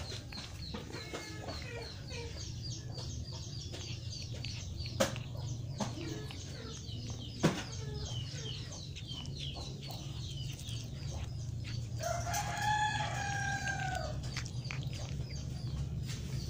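A rooster crows once, a long call about twelve seconds in, over repeated small high bird chirps. Two sharp clicks come near the middle.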